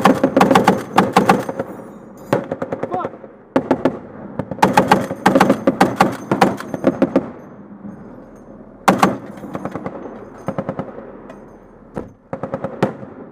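M2 .50-caliber heavy machine gun firing in rapid bursts at close range: a burst at the start, a short burst about two seconds in, a longer burst of about two and a half seconds from about four and a half seconds in, then a few scattered single shots.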